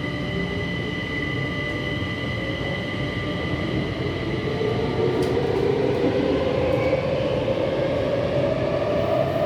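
Metro train running, heard from inside the car: a steady rumble with high whining tones. From about five seconds in, a motor whine rises in pitch and grows louder as the train speeds up.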